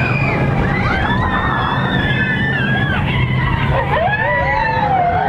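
Mine-train roller coaster running along its track with a steady rumble, under riders' long screams and whoops that rise and fall in pitch.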